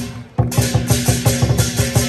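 Music with a fast, steady drum beat over a held low note. It drops out briefly about a third of a second in, then comes straight back.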